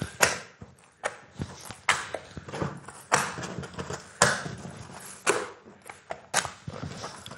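Wet, sticky sourdough being stretched and folded by hand on a wooden countertop: a sharp slap or sticky pull about once a second, each dying away quickly.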